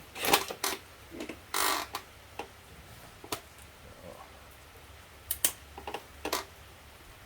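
Tools and small objects being handled on a workbench: scattered clicks and knocks, with a short scraping rustle about a second and a half in.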